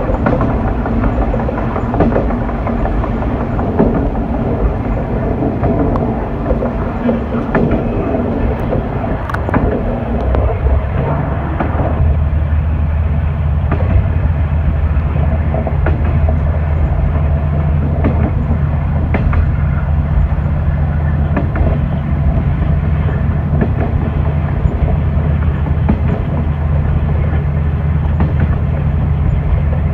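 Diesel railcar running along the line, heard from the driver's cab, with wheels clicking over rail joints. About ten seconds in, the engine settles into a steady low hum that holds.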